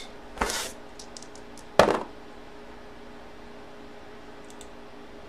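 Dice tossed onto a cardboard box lid: a short rattling burst, then one sharp, loud clack about a second and a half later, with a few faint ticks near the end.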